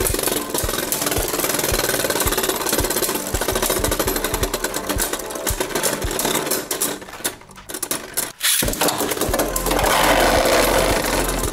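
Two Beyblade Burst spinning tops whirring and rattling against each other on a plastic stadium floor, in a fast, dense clatter of clacks.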